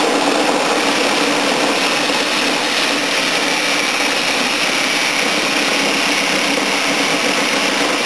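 Electric power saw running steadily, its blade cutting through the aluminum fins of an air-conditioner radiator coil, held lightly against the work.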